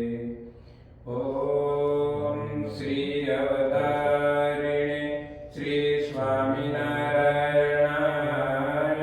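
Voices chanting a Hindu devotional mantra in long, steadily held notes, with a short pause about a second in and a brief break partway through.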